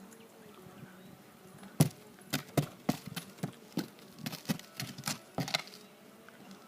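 A horse's hooves knocking on a hard surface: about a dozen sharp, uneven clops over roughly four seconds, starting about two seconds in.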